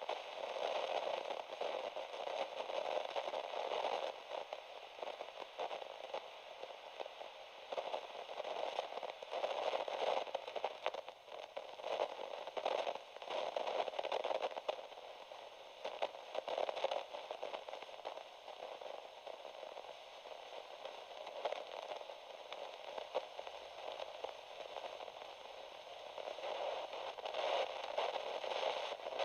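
Crackling static of a dictaphone tape recording with no voice on it: a thin, band-limited hiss full of fine crackles that swells and fades every second or two.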